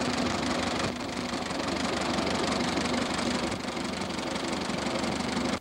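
Tractor engine running steadily while an antique wheat binder's machinery clatters close by.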